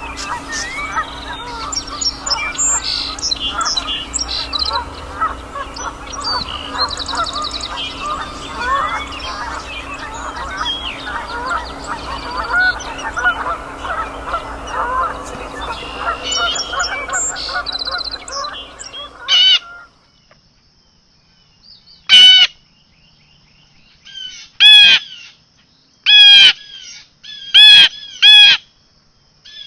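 A large flock of birds calling over one another, many overlapping calls in a steady din. About two-thirds of the way in it cuts off abruptly to near quiet, followed by five loud single bird calls spaced a second or two apart.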